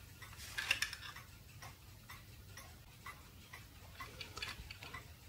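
Steady faint ticking, about two ticks a second, with the rustle and clack of the opened plastic sensor housing being handled about half a second in and again near the end.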